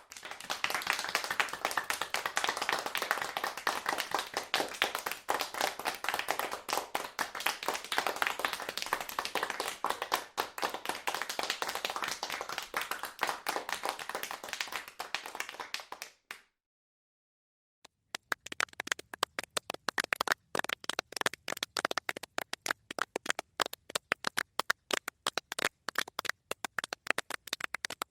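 A crowd applauding, a dense run of many overlapping hand claps that thins out and stops about sixteen seconds in. After a brief silence, a smaller group starts clapping with sparser, clearly separate claps.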